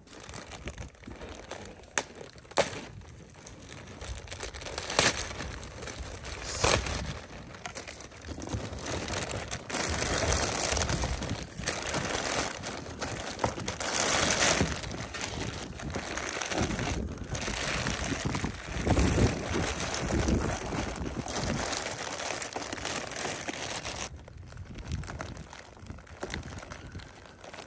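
Plastic sheeting crinkling and rustling as it is handled, with a few sharp knocks in the first several seconds.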